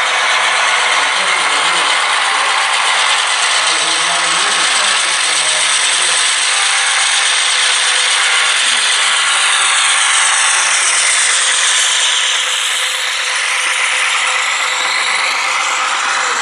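Model freight train running past close by: a steady metallic rattle and clatter of wheels on the rails and the locomotive's geared drive. The pitch of the hiss sweeps down and back up as the locomotive passes, about twelve seconds in.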